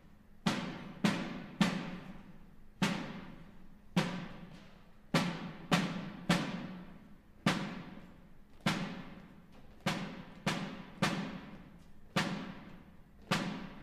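A military band's percussion section playing a sparse marching cadence: separate drum strikes, some in quick runs of two or three, each ringing out before the next.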